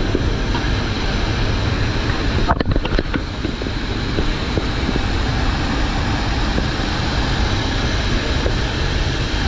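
Steady roar of the C-130J Super Hercules's four turboprop engines and the slipstream rushing past the open paratroop door, heard inside the cargo hold, with a short cluster of knocks about two and a half seconds in.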